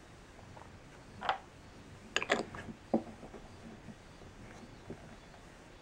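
Small handling sounds of a fountain pen and its glass ink bottle after filling: a brief rustle about a second in, then a quick cluster of sharp clicks and a single knock around two to three seconds in, with a few faint ticks after, as the bottle is being capped.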